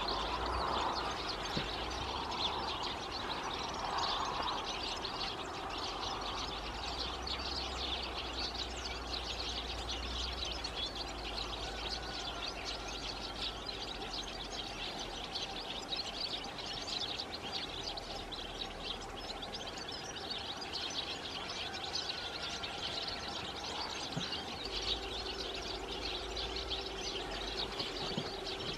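European goldfinches twittering: a continuous stream of short, high chirps from a small flock, with a faint steady low hum underneath.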